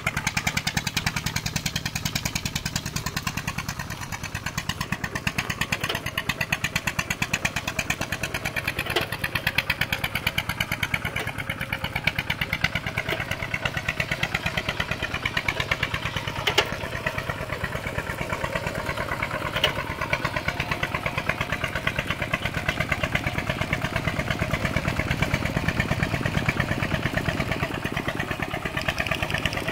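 Two-wheel walking tractor's single-cylinder diesel engine running steadily under load as it drags a harrow through paddy mud, with a rapid, even chugging. Two sharp knocks come about two thirds of the way through.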